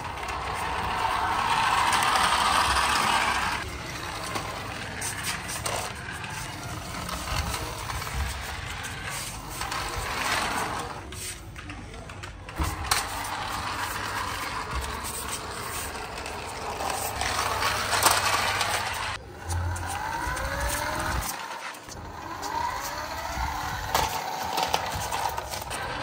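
Small electric motor and plastic gears of a toy remote-control car whirring in bursts of a few seconds as it is driven, stopping and starting, with its plastic wheels rolling on concrete.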